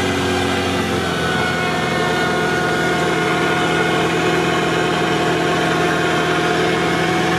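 Off-road vehicle's engine running at a steady, even speed, heard from inside the cab.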